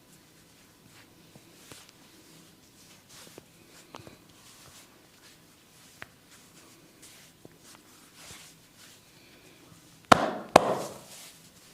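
Quiet rubbing and light taps of hands working on skin, then near the end two loud sharp hand slaps about half a second apart, a percussive massage strike.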